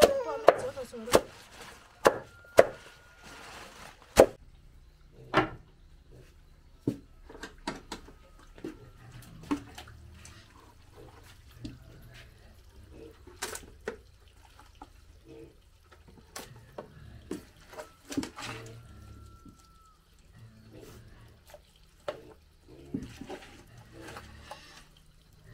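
A cleaver chopping leafy stems, a few sharp chops in the first five seconds. Then hands mixing chopped greens into a pot of wet bran mash, with soft wet squelches and small knocks.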